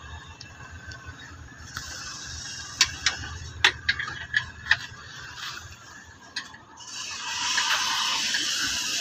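Sharp metallic clicks and clinks of a spanner on a car's suspension bolt, about half a dozen irregular strikes through the middle. A steady rushing noise comes in near the end.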